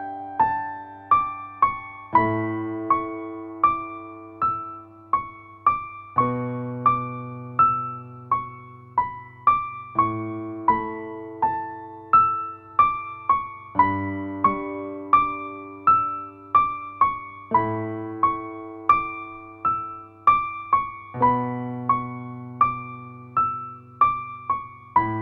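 Background piano music: a gentle piece of repeated broken chords, a few notes a second, each note ringing and fading, with the bass and chord changing about every four seconds.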